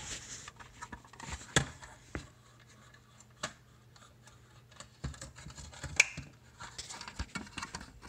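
Scattered plastic clicks and scratching as the snap-fit plastic housing of a Bosch dishwasher control unit is pried open by hand. The sharpest snaps come about a second and a half in and again about six seconds in.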